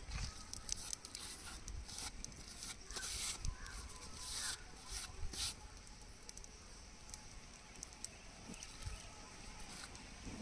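Fresh green leaves and a thin plastic bag rustling and crinkling as they are handled, with small tearing snaps as leaf stems are pinched off. The crackling is busiest in the first five seconds, then thins out.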